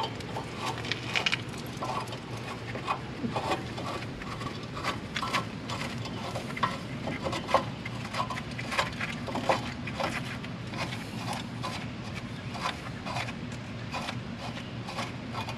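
Scattered light clicks and taps of metal brake parts being handled as the caliper bracket bolts are threaded in by hand, over a steady low background hum.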